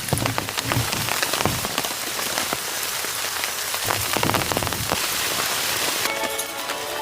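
Steady rain falling, with many separate drop hits over a continuous patter. Near the end a brief pitched sound with several steady tones comes in for about a second and a half.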